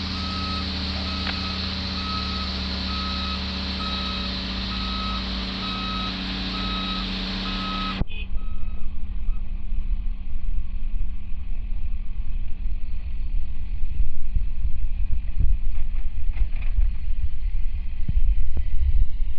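A dump truck's reversing alarm beeps about twice a second over the steady running of a LiuGong 938E excavator's diesel engine. About eight seconds in, the sound changes abruptly to a louder, uneven low rumble and the beeping stops.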